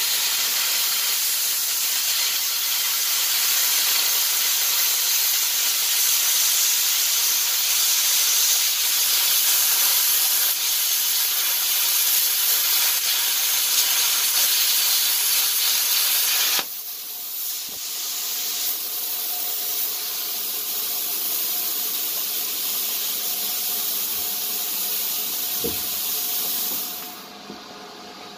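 Velt Cut 60 plasma cutter cutting steel at a higher current setting, a loud steady hiss from the arc and air. About two-thirds of the way through the arc cuts out abruptly, and a quieter hiss of air carries on for about ten seconds before dying away near the end.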